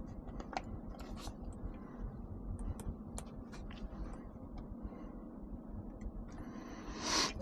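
Light, scattered clicks and taps of hands handling a DYE MXR paintball marker while fitting its new grips, with a brief rustle near the end.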